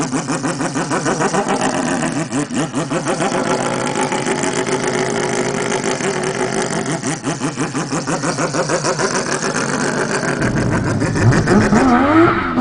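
Wankel rotary engine idling with a choppy, lumpy pulse and a wavering pitch, then revving up near the end.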